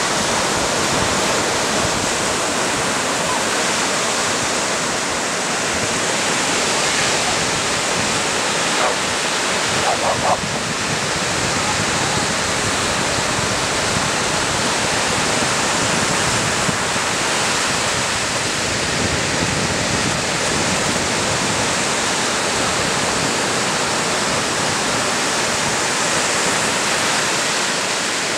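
Ocean surf breaking and washing up a sandy beach: a steady rush of waves with no pause.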